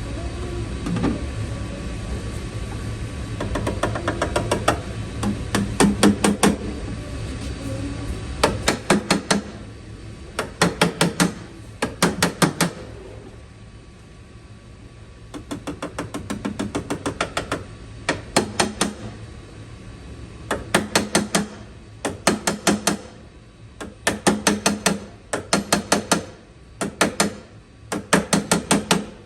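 Panel-beating: a flip (slapper) or body hammer struck repeatedly on a steel car quarter panel backed by a dolly. The strikes come in quick bursts of several strokes a second, each with a short metallic ring, and they reshape low areas along the body line. A low hum underneath fades out about nine seconds in.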